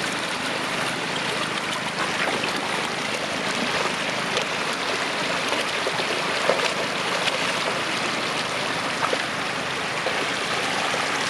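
Floodwater running steadily over a road, a continuous rushing water sound, with a couple of brief sharper splashes or knocks near the middle.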